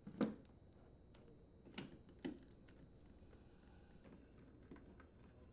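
Faint knocks and clicks of a refrigerator's rear access panel being set against the cabinet and its screws driven with a hand nut driver: one sharp knock just after the start, two more clicks about two seconds in, then a few light ticks.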